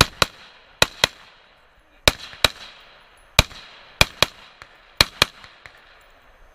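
Gunshots from a competitor firing on a 3-Gun stage: about a dozen shots, mostly in quick double taps roughly a quarter second apart with about a second between pairs, each followed by a short echo off the range.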